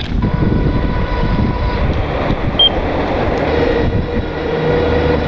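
Electric bike being ridden on a road: a steady motor whine over tyre and wind rumble, with two brief high chirps.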